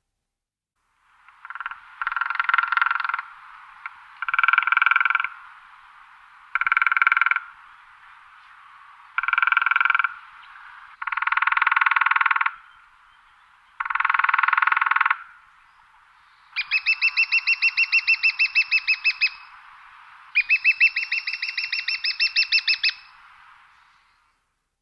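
Woodpecker drumming on wood. Six short, rapid rolls come about every two to two and a half seconds, each echoing briefly. Near the end come two longer, slower rolls in which each beak strike can be heard separately.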